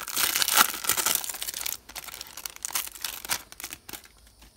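Foil wrapper of a 1994-95 Fleer basketball card pack crinkling as it is torn open. The crinkling is dense at first, then thins to a few scattered crinkles and fades out near the end.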